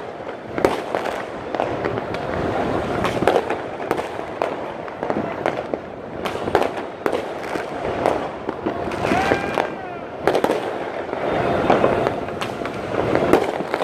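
Fireworks and firecrackers going off across the city: many irregular sharp bangs and pops, near and far, over a steady background din.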